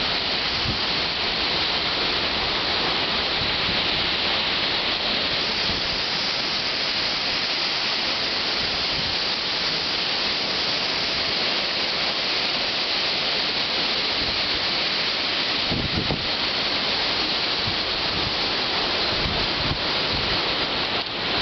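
Windstorm with heavy rain: a steady loud rush, with gusts now and then buffeting the microphone, most noticeably about sixteen seconds in.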